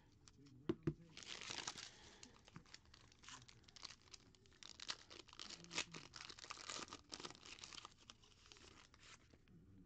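Faint crinkling and tearing of a foil trading-card pack wrapper being torn open and handled, with two short knocks about a second in.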